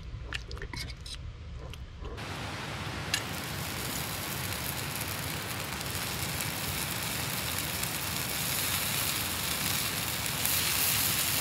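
A few light clinks of a fork in a stainless pot of saucy chicken wings. From about two seconds in comes a steady sizzle with crackling as sauced chicken wings go onto a hot grill grate over campfire coals, growing louder as more wings are laid down.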